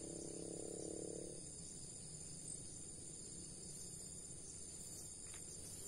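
Steady high-pitched chorus of crickets and other insects, faint, with a low hum that stops about a second and a half in.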